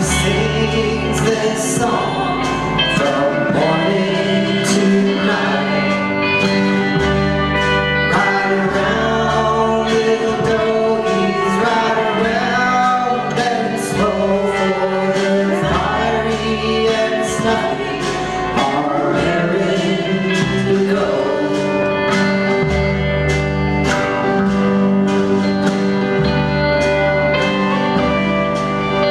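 Live country band playing a slow song: singing over acoustic guitar, pedal steel guitar, upright bass and drums.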